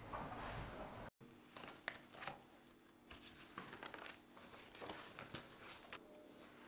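Faint rustling and light clicks of paper album pages being handled and turned, over a faint low hum of room tone. The room sound cuts off abruptly about a second in.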